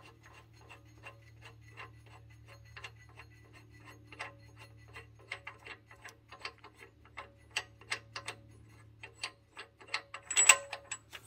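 Crankshaft pulley bolt of a Toyota 3RZ-FE engine being turned out by hand after being broken loose: a run of light, uneven metallic ticks and clicks, with a louder metal clink near the end as it comes free.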